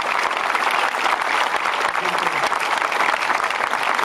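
Crowd applauding: many people clapping at once in a steady, dense patter.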